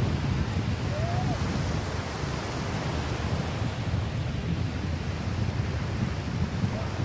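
Strong wind buffeting the microphone in a ragged low rumble, over a steady rushing hiss, with a faint short squeak about a second in.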